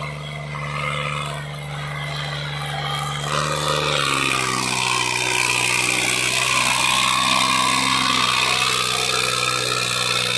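Sonalika DI 35 tractor's diesel engine labouring under heavy load as it pulls a fully loaded trolley out of soft ground. It runs steadily at first; about four seconds in, its note drops as the load comes on and the sound grows louder and rougher.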